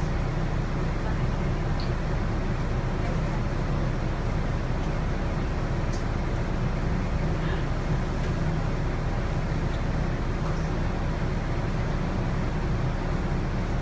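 Cabin drone of a Volvo B9TL double-decker bus, its six-cylinder diesel engine running with a steady low hum and a few faint ticks.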